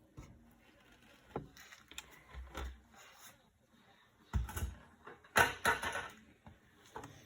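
Handling noises while fluid is poured into a funnel: scattered knocks and thumps, two heavier thumps about four and a half seconds in, and a louder noisy burst about a second later.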